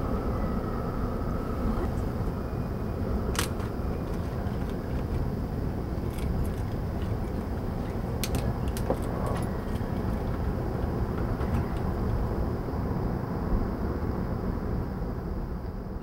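Steady outdoor background rumble, with a few sharp clicks and rustles as a cloth handbag is rummaged through and a plastic water bottle taken out.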